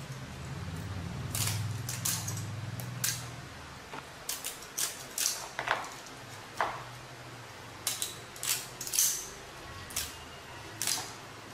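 Kitchen shears cutting through a raw crab's shell and legs: more than a dozen sharp, irregular snips and cracks as the crab is cut into quarters.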